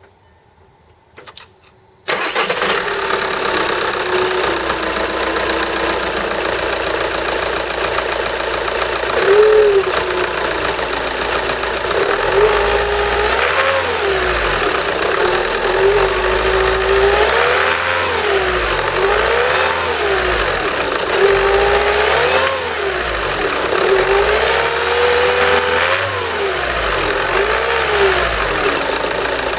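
2010 VW Golf TDI 2.0-litre four-cylinder diesel starts about two seconds in, idles with its diesel clatter, then is revved in repeated short blips. A whirring, grinding whine rises and falls with each rev over the clatter: the sign of a failed turbocharger, its compressor-side bearing gone and the turbine wheel hitting its housing.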